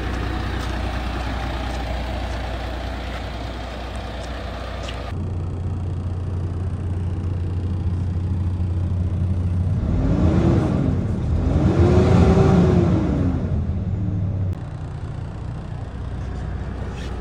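MAN TGX 26.480 tractor unit's straight-six diesel engine idling steadily. After a cut it is heard from inside the cab on the move, its note rising and falling twice in the loudest part, then settling back to a steady run.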